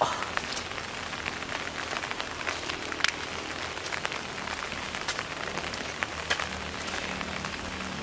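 Steady rain, with single drops ticking sharply on an umbrella held overhead.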